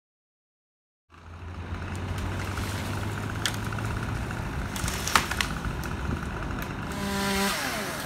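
Engine noise from a tree-felling job starts about a second in and runs steadily, with a few sharp knocks midway. Near the end a chainsaw is revved high for a moment, then its pitch falls as the throttle is let off.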